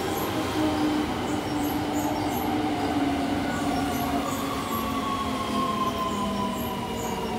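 Keio 8000 series electric train heard from inside the car while running, its original un-renewed GTO-VVVF traction inverter and motors whining in several tones that slowly fall in pitch as the train slows, over steady rumble of wheels and rails.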